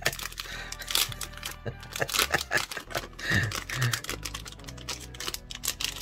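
Clear plastic cellophane bag crinkling and crackling as fingers pull and pick at it to get it open: a rapid, irregular stream of crackles.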